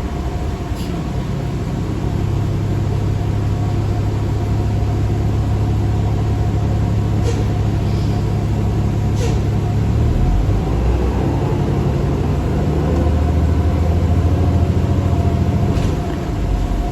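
New Flyer D40LF city bus's diesel engine and drivetrain heard from inside the cabin, pulling steadily; about ten seconds in the pitch drops and the level dips briefly, like a gear change, then the drive builds again. The rider calls this bus's transmission bad.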